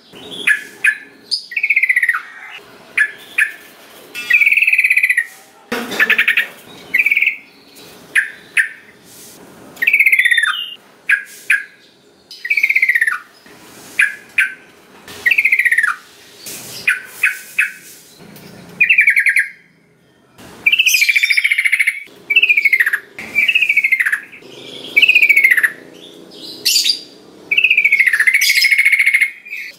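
Yellow-vented bulbul (trucukan) calling and singing: a string of bright, sharp notes, many of them falling in pitch, one after another about every second, with quick chattering clicks between them.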